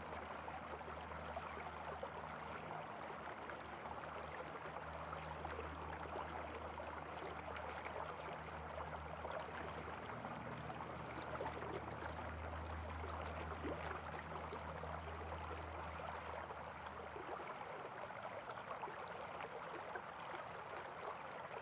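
Faint steady rushing noise with a low hum underneath; the hum stops about three-quarters of the way through.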